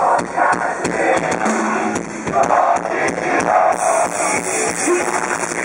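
Live rock band playing loud: drums, electric guitar and a singer.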